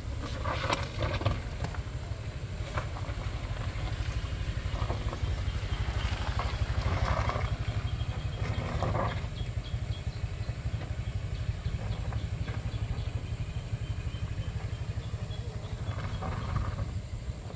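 A small hatchback car's engine and a motor scooter's engine running as they climb a loose dirt road, with a steady low rumble; the scooter is loudest as it passes close by about eight seconds in.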